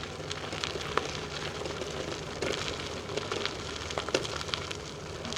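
Bicycle being ridden along a trail: a steady rolling noise with many small, scattered clicks and crackles.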